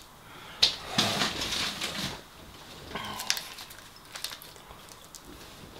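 Crinkling and rustling of a foil pie tray and paper food wrappings being handled on a table, with a sharp click about half a second in and a few more clicks near the middle.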